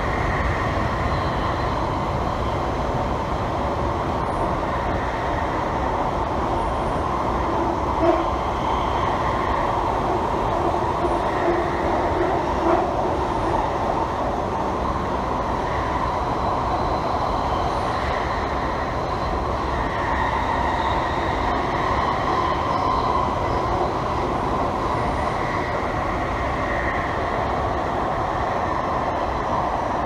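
London Underground 1996 stock train running through a tunnel, heard from inside the carriage: a steady, loud rumble of wheels and motors. Two brief knocks come through, about eight and thirteen seconds in.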